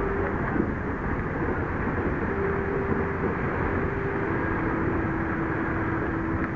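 Steady wind rumble on the microphone mixed with small waves washing up a sandy beach, with a faint steady hum that comes and goes.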